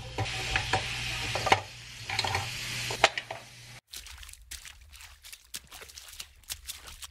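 Chicken tenders going onto the hot plates of an OptiGrill contact grill with a hiss of sizzling and the rustle of a plastic freezer bag, over a low steady hum. About four seconds in the sound cuts, then a run of quick ticks as seasoning is ground or shaken from a spice bottle over the meat.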